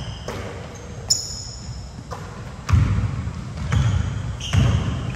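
Basketball bouncing on a hardwood gym floor, thumping about once a second and louder from about halfway in, with short high sneaker squeaks.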